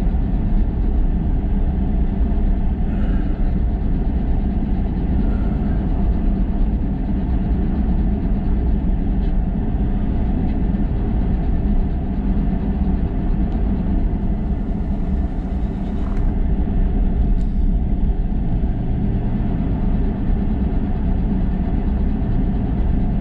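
Steady road and engine noise inside a moving car.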